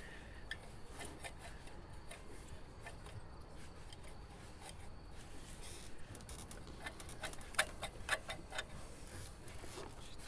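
Scattered light clicks and taps, with a quick cluster of sharper clicks about seven to nine seconds in.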